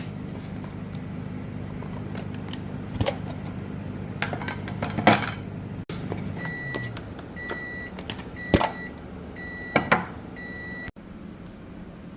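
Microwave oven running with a steady hum, then winding down about halfway through and giving its end-of-cycle signal of about five short, high beeps. A few clicks and clatters are heard along the way.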